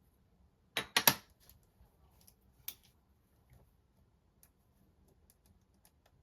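Small objects handled on a desk during note taking: three sharp clicks in quick succession about a second in, another click near three seconds, then faint light taps and ticks.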